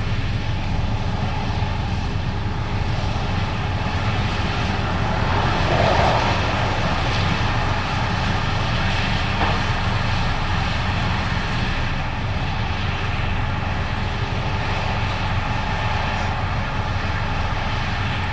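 Case IH 8250 Axial-Flow combine running steadily while harvesting corn: a continuous diesel engine drone mixed with machine noise, swelling briefly about a third of the way in.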